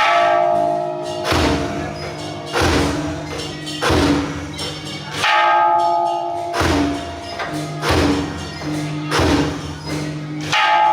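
Music with a steady beat of deep drum hits, about one every second and a third, and ringing bell-like chimes every few beats.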